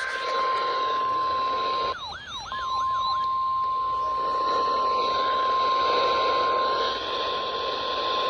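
NOAA Weather Radio warning alarm tone, a single steady pitch of about 1050 Hz, sounded as the weekly test of the signal that sets off weather alert receivers. It plays over radio static and drops out for about a second, around two seconds in, while a few quick sweeping whistles sound.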